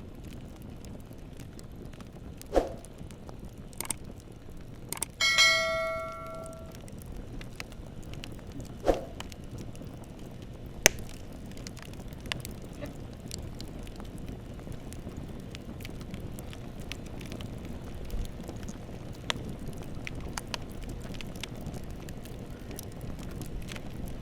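Bonfire burning with a steady crackle and scattered sharp pops. About five seconds in, a bell-like metallic ring sounds once and fades over a second or so.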